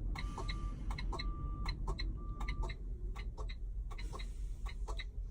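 Rapid, even ticking over a low steady rumble, with three short high beeps in the first three seconds, typical of a semi-truck cab's dash and flasher sounds with the engine idling.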